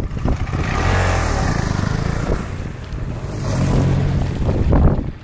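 Motorcycle engine passing close by, its note rising and falling as it goes past, loudest just before the end.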